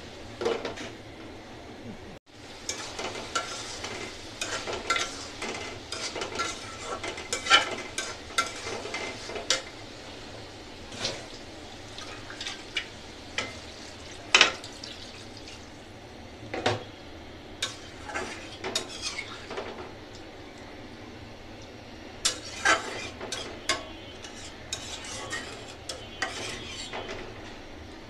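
A metal spatula scraping and clinking irregularly against a blackened karahi as a curry of eggplant, potato and chillies is stirred, over a steady sizzle from the pan. The sound briefly cuts out about two seconds in.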